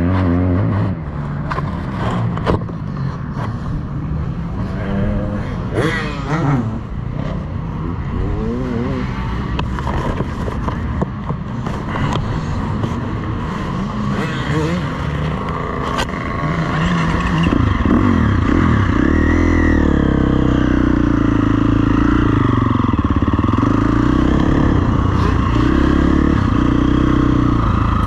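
KTM 350 SX-F motocross bike's single-cylinder four-stroke engine running on the track, its revs rising and falling, with a few sharp knocks and clatters in the first half. A little past halfway the engine grows louder and stays at higher revs.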